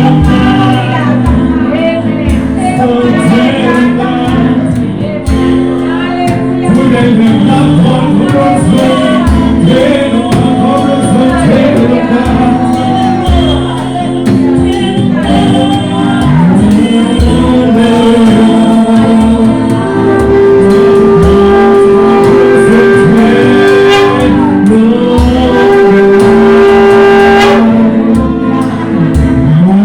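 Gospel worship song performed live: voices singing over band accompaniment with a steady bass, and long held notes in the second half.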